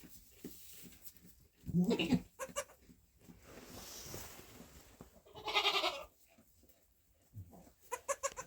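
Goats bleating: a call about two seconds in, a longer wavering bleat in the middle, and a short stuttering bleat near the end.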